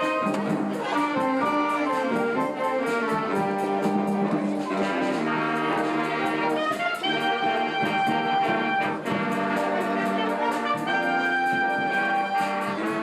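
Brass-led band music with a steady beat, trumpets and trombones carrying the melody.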